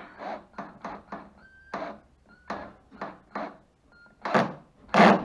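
Cordless drill with a long extension run in short trigger bursts, about two a second, with two louder bursts near the end.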